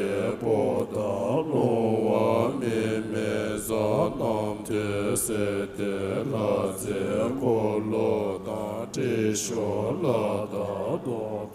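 Buddhist prayer chanting: several voices chanting a repeating line over a steady sustained drone.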